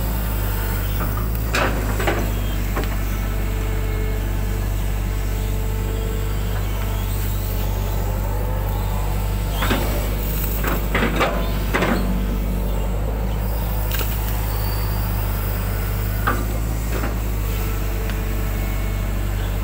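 Hydraulic excavator engine running with a steady low drone, heard from the operator's cab, with scattered knocks and clatters as the bucket digs and scrapes mud out of a drainage ditch, several of them bunched together about halfway through.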